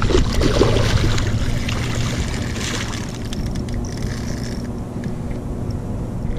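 Water splashing as a hooked muskie thrashes at the surface beside the boat, loudest in the first second and again near the middle. A steady low hum and haze run underneath.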